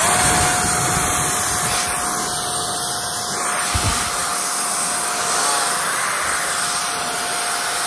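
Hukan F3 cordless jet blower running at speed: loud rushing air with a steady high whine, after a quick spin-up at the start.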